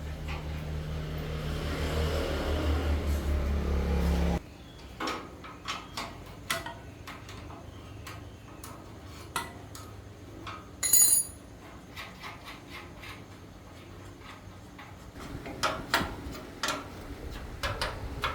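A small motor runs with a steady pulsing note, grows louder, then cuts off suddenly about four seconds in. After it stops come scattered metal clinks and taps of tools, with one bright ringing clink about halfway through.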